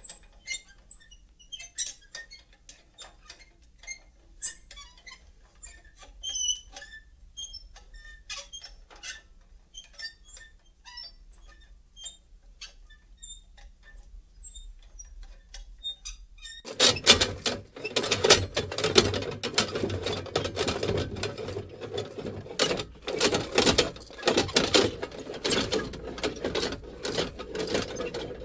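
Metal lantern being handled: scattered small clicks, faint squeaks and light tinkling, then just past halfway a sudden switch to a dense, louder metallic rattling and creaking as it is shaken.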